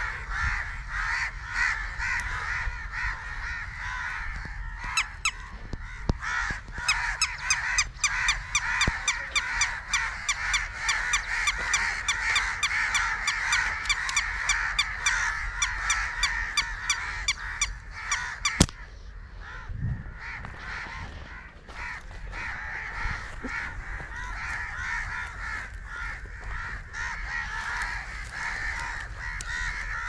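A dense chorus of birds calling continuously. From about five seconds in, a fast, even run of sharp calls joins at about three a second, then stops abruptly with a click around eighteen seconds in.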